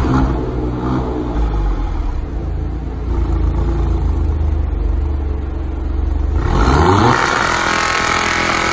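Alfa Romeo Giulia's engine idling steadily, then revved about two-thirds of the way in, its pitch climbing quickly and staying high.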